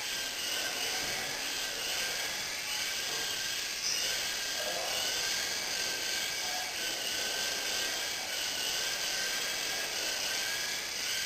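Small RC helicopter flying, its electric motor and rotors making a steady high-pitched whine that wavers slightly in pitch.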